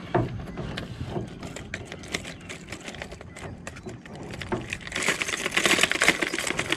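Fishing reel being cranked to retrieve line, a run of fast mechanical clicking that grows loudest about five seconds in.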